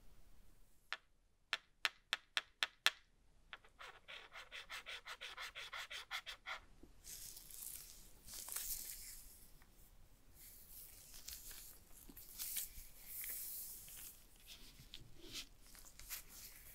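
Gloved hands handling Apple AirPods Max headphones. First come about seven sharp clicks, then a quick run of ticks at about five a second, then scratching and rubbing as the ear cups are worked and the ear cushions come off.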